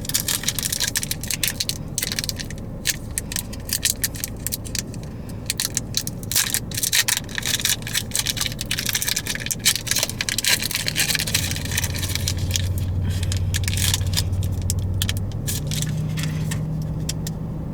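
Foil Pokémon card booster pack being torn open by hand and crinkled, with the cards inside rustled and handled; a steady low hum comes in about two-thirds of the way through.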